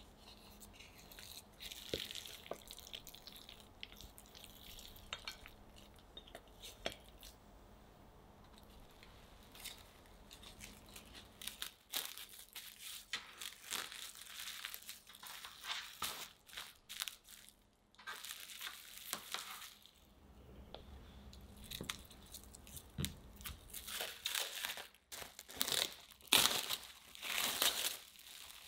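Plastic cling film crinkling and rustling in bursts as hands fold it around a block of chocolate chip cookie dough, press it flat and later peel it off. A few soft knocks come in the quieter first part.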